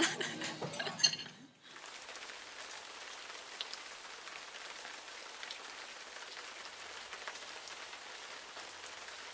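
Steady rain falling, an even hiss that starts about a second and a half in. Before it there is a moment of voices and a clink at a dining table.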